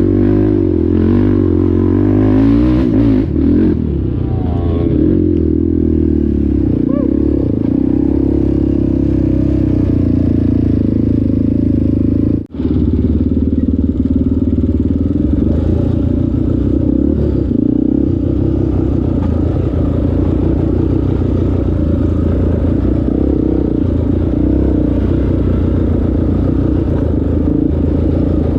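ATV engine running under way, its pitch wavering over the first few seconds and then holding steady, with the sound cutting out for an instant about twelve seconds in.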